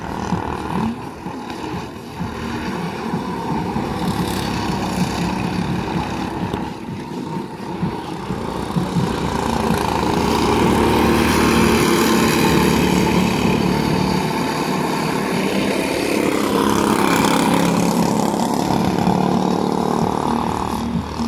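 Go-kart engines running as karts lap the track, getting louder about halfway through as they come nearer.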